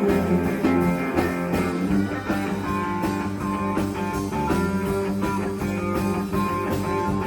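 Instrumental break of a country song, with guitar over a full band and no singing.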